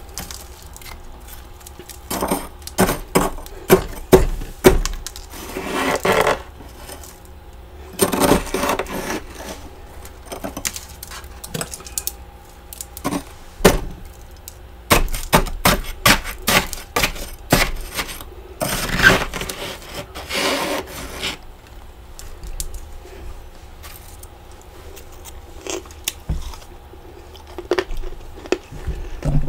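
Thick frost buildup inside a freezer being scraped and dug out with a spoon and fingers, crunching and scraping in irregular bursts with short quieter pauses.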